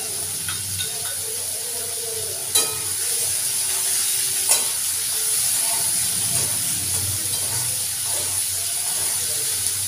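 Diced potatoes and onion sizzling as they fry in a metal kadai, stirred and scraped with a metal spatula. The spatula knocks sharply against the pan twice, about two and a half and four and a half seconds in.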